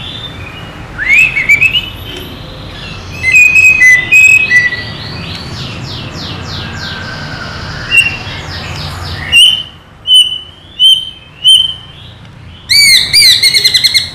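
White-rumped shama singing: loud, varied phrases of sweeping whistles mixed with fast trills of repeated notes, with four short separate whistles about two-thirds of the way through and another quick trill near the end.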